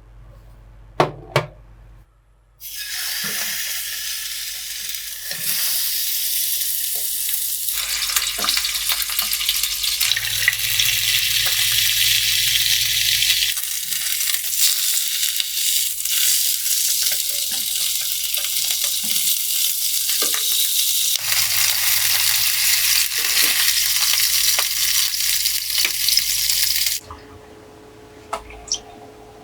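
Food frying in hot oil: a steady sizzling hiss that shifts in level a few times and stops abruptly near the end. A couple of sharp knocks come just before the sizzling starts.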